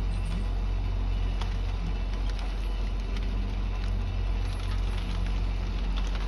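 Heavy logging machine's diesel engine running steadily with a low drone, with scattered sharp cracks and snaps of breaking wood and branches.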